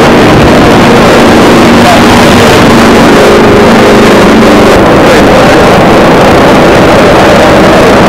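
Piston engine of a propeller-driven warbird running, very loud and overloading the recording.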